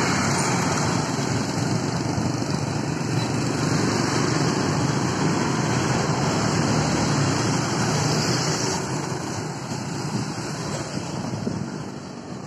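Steady wind rush on the microphone of a camera riding along on a moving bicycle, mixed with street traffic noise; it eases off somewhat after about nine seconds.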